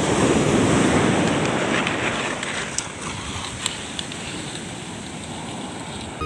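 Surf washing up the beach, loudest in the first second or two and then easing off, with wind buffeting the microphone.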